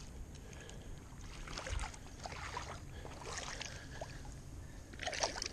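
Shallow lake water sloshing and splashing as a person wades in and holds a bass in the water to release it, with a louder burst of splashing near the end.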